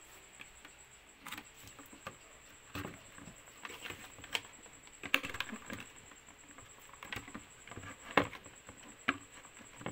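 Irregular clicks and knocks of a RAM module being pushed into a motherboard memory slot, with the slot latches snapping and the power supply cables being handled.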